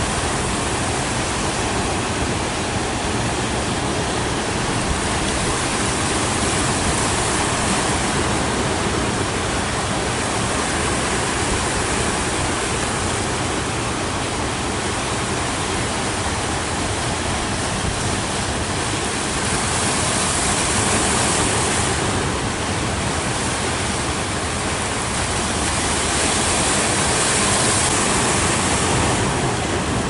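Rough sea surf: waves breaking and washing on the shore in a continuous wash of noise that swells louder several times as bigger breakers come in.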